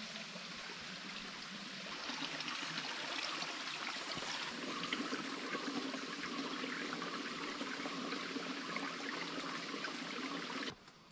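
Running water, a steady rushing hiss that gets louder about two seconds in and cuts off abruptly near the end.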